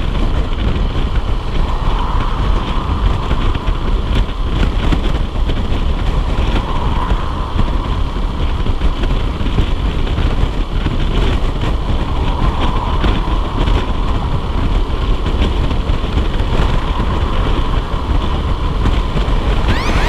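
Honda CBF125R motorcycle running on the road under steady, heavy wind noise on the microphone, with a higher engine note that swells a few times.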